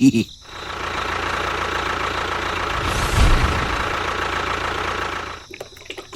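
Small electric motor running steadily with a whir and a thin whine, briefly surging about three seconds in and cutting off after about five seconds.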